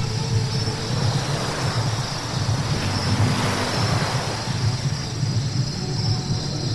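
Car driving on a wet road: a steady low road-and-engine drone with tyre hiss, the hiss swelling briefly about halfway through.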